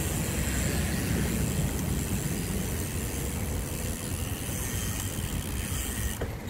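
Steady road traffic noise, a continuous rumble of cars and other vehicles on a busy road. The hiss in the upper range drops away about six seconds in.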